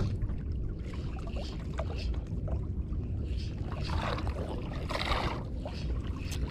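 Choppy sea water lapping and sloshing against a small boat's hull over a steady low rumble, with two brief louder splashing washes about four and five seconds in.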